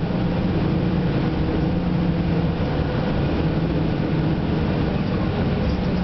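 Tour bus engine and road noise heard from inside the moving bus: a steady drone with a low hum.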